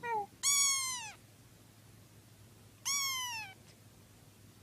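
A cat meowing three times: a short meow, then two longer, high-pitched meows, each falling in pitch. A faint steady low hum sits underneath.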